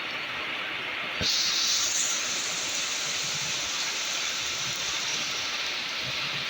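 Rain and an electric commuter train at a station platform. About a second in, a sudden loud hiss starts, strongest for about a second and then settling into a steady hiss.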